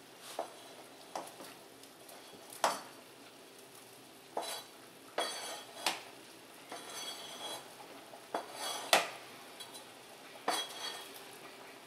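Cleaver scraping chopped chicken off a plastic cutting board into a stainless steel pot: irregular taps and scrapes, several of them with a short metallic ring.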